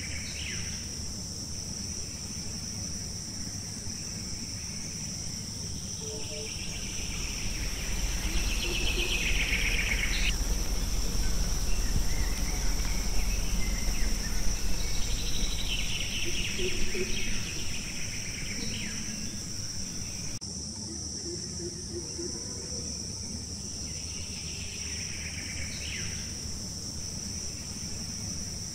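Steady high-pitched insect chorus in forest, with a louder rasping insect call that swells and cuts off sharply about every six to ten seconds. A low rumble rises about eight seconds in and fades out after about seventeen seconds.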